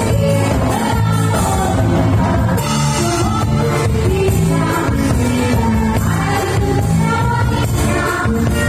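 Live band playing upbeat disco dance music: women singing lead over electric guitars, keyboard and a drum kit, full and loud with no breaks.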